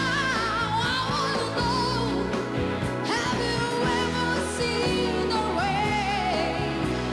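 A singer's voice holding and sliding between notes with vibrato, over a band accompaniment in a pop-rock cover song.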